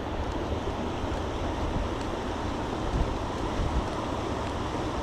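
Steady rush of flowing creek water, with a low wind rumble on the microphone.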